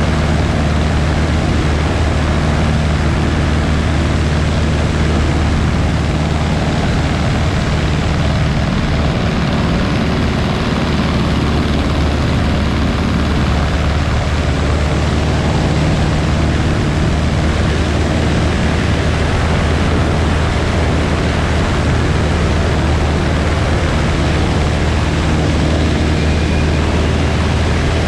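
Small propeller airplane's engine and propeller running steadily in flight: a constant low hum under an even rushing noise, unchanging throughout.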